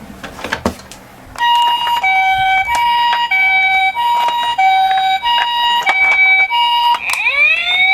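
A toy ambulance's electronic siren sounding the Japanese two-tone hi-lo pattern, switching between two pitches about every half second, beginning about a second and a half in after a few light clicks. Near the end it changes to a rising wailing siren.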